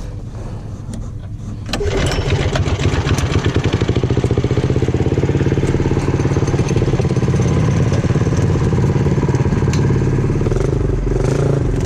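Freshly rebuilt Predator single-cylinder mini bike engine starting about two seconds in, then running at a steady idle while its new piston rings break in on the freshly honed cylinder.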